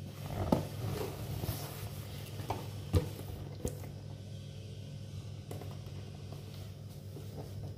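Handling noises as a hand blender's box and packaging are handled: a few sharp knocks and faint rustling over a steady low hum.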